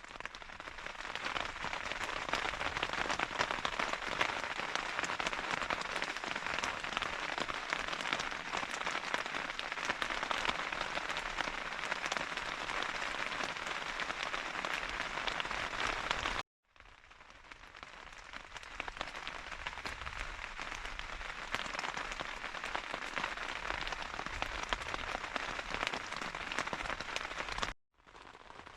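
Heavy rain from a severe thunderstorm, falling steadily as a dense hiss of drops. It cuts out to silence about 16 seconds in and again near the end, and builds back up each time.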